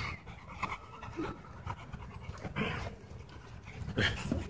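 Dog panting in short, uneven breaths.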